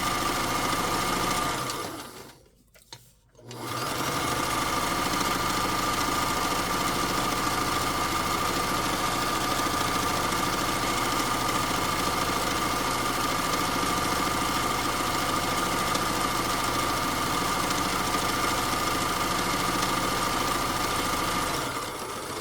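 Vintage Kenmore sewing machine running steadily while topstitching a strap. About two seconds in it stops briefly, then starts again and runs on until it stops near the end.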